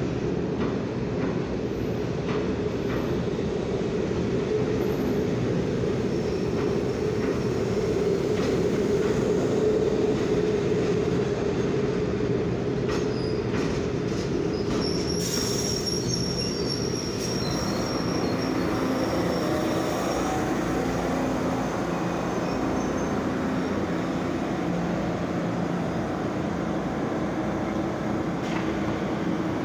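Caracas Metro Alstom GEC Siemens Serie 3 train rolling slowly into an underground station, a steady rumble of wheels on rail. A high-pitched squeal comes in about halfway through, and low steady hum tones rise out of the rumble as it slows for the platform.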